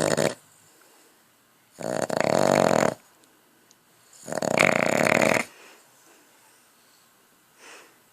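Snoring made while awake: a short snore at the very start, then two long rasping snores of about a second each, and a faint one near the end.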